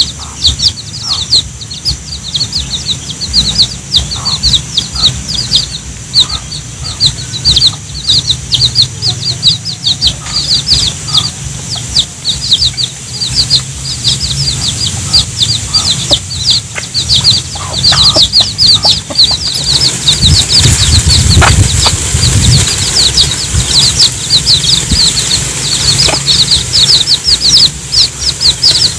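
Baby chicks peeping non-stop, rapid high downward-sliding peeps, with a mother hen clucking now and then as she calls them to the banana. A low rumble swells about two-thirds of the way through.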